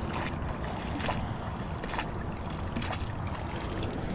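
A fishing magnet with a recovered hammer stuck to it being dunked and swished in the water to clean it off, splashing about once a second.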